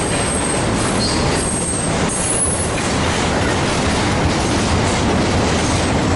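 Double-stack intermodal freight train's well cars rolling past close by: a steady, loud rumble of steel wheels on the rails, with a few faint high wheel squeals in the first half.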